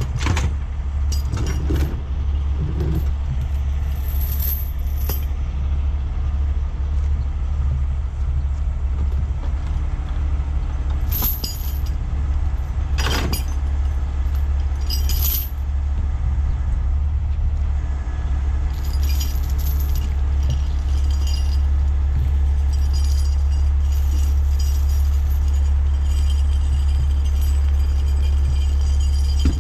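Heavy rotator tow truck's diesel engine running steadily, with chains clinking against metal now and then as the rigging is handled.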